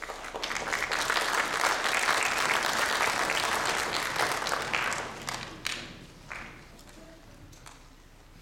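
Audience applauding. The applause swells quickly, holds for about five seconds, then dies away, leaving a few scattered claps.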